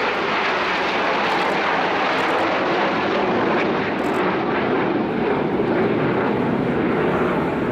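Jet engine noise from a close formation of seven Aermacchi MB-339 jet trainers flying overhead, a loud, steady rushing sound without breaks.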